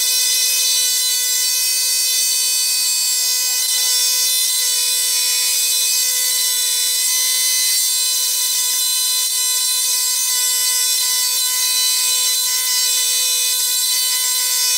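Scroll saw running steadily as it cuts a walnut blank, a constant high whine with a hiss of cutting over it.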